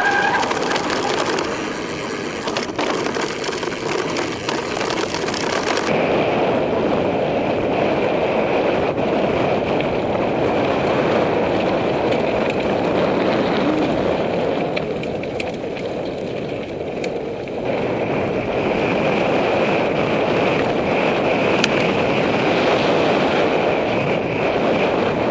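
Mountain bike riding over a loose gravel singletrack, heard from a helmet camera: steady wind rush on the microphone mixed with tyre and bike rattle noise. The highest hiss drops away about six seconds in.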